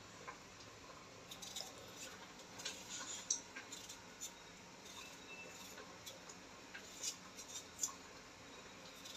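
Kitchen knife peeling a raw potato: faint, irregular short scrapes and clicks as the blade cuts under the skin.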